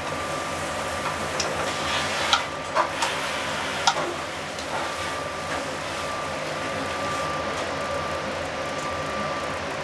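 Cauliflower sizzling in a sauté pan over a gas burner, a steady hiss, with a few sharp clinks of metal tongs against the pan between about two and four seconds in. A faint high tone comes and goes behind it.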